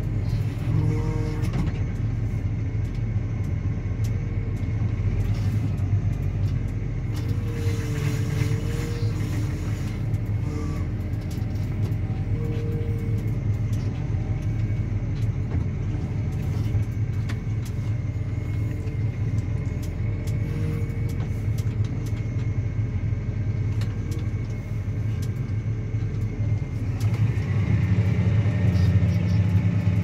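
Claas Axion 850 tractor's six-cylinder diesel engine running steadily under load while pulling a reversible plough. Near the end the engine note rises and grows louder.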